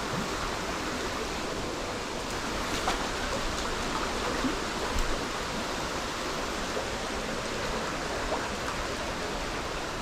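Water of a small stream rushing steadily, with a few faint clicks.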